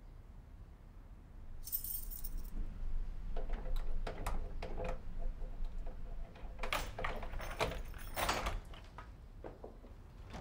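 A bunch of keys jangling and rattling in a door lock, with runs of sharp metallic clicks over several seconds. A short hiss comes about two seconds in.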